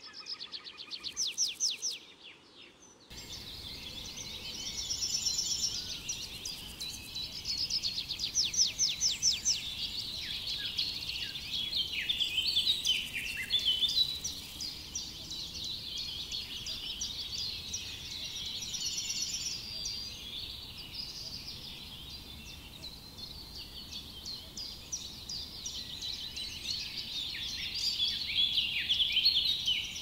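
Several songbirds singing at once: a dense chorus of rapid trills and chirps over a faint steady hiss. The chorus thins briefly about two seconds in and fills out again about a second later, when the hiss comes in abruptly.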